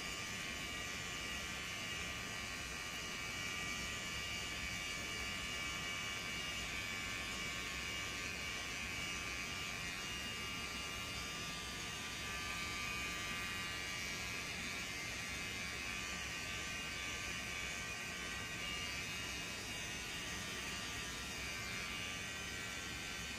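Corded electric hair clippers buzzing steadily as they cut short hair.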